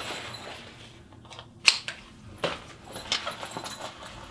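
Fanny pack being picked up and strapped around the waist: strap rustling and a few sharp clicks and rattles of its fittings.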